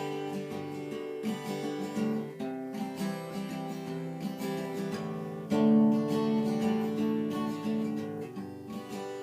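Acoustic guitar strumming and picking chords as a song introduction, the chords changing every second or so, louder from about five and a half seconds in.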